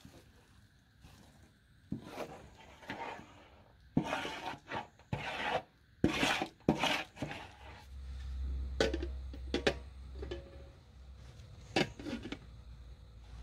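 A wooden spatula scraping thick, grainy halva out of a metal pot into an enamel bowl: a run of short scraping strokes with a few sharp knocks. In the later seconds come quieter rustles and clicks as a cloth is handled over the bowl.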